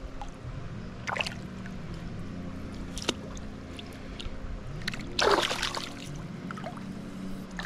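Water splashing in a landing net as a small brook trout is handled and released into the stream, in a few short splashes with the largest about five seconds in. A low hum steps up and down in pitch underneath throughout.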